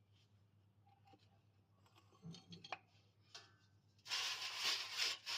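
A few light clicks and knocks of tools on metal, then about four seconds in a loud, steady hiss of spraying or blowing air begins.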